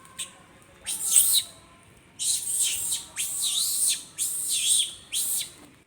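A monkey screaming in a series of high-pitched, wavering squeals: one short call about a second in, then four longer ones in quick succession.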